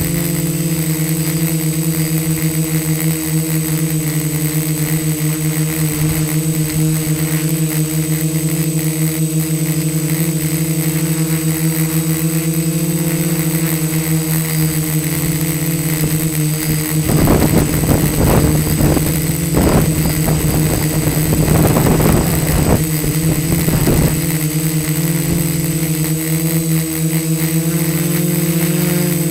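DJI F450 quadcopter's four brushless motors and propellers, heard from the camera on board, giving a steady multi-pitched hum with a thin high whine above it. From about 17 to 24 seconds in, bursts of rushing noise break in over it, fitting gusts of wind on the microphone.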